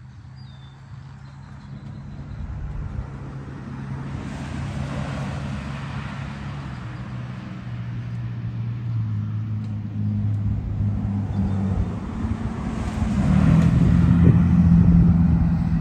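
An engine running, getting steadily louder with its pitch shifting, loudest near the end.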